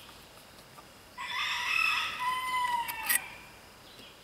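A rooster crowing once, a single call of about two seconds starting a little over a second in, its pitch falling at the end.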